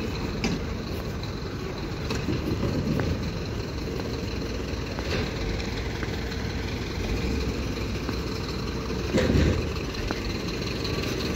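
Steady hum of an idling engine in street noise, with scattered light knocks and a brief louder noise about nine seconds in.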